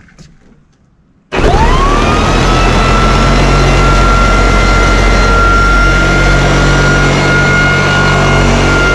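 Electric square-pad floor sander, weighted down, switched on a little over a second in: the motor starts abruptly with a quickly rising whine that settles into a steady high pitch over a low hum. It then runs loud and steady at full speed while sanding the painted wooden deck boards.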